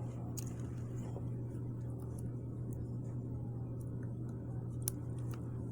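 Faint, scattered small clicks of a lock pick working the pins of an antique Ilco pin-tumbler padlock under tension, over a steady low hum.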